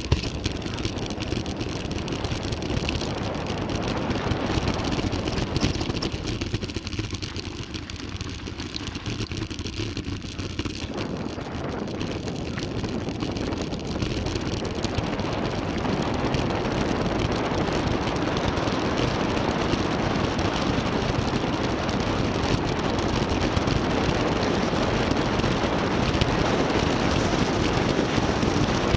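Mountain bike descending a dirt trail: steady rumble of tyres rolling over the ground and rush of wind, with no speech. It grows louder from about halfway through.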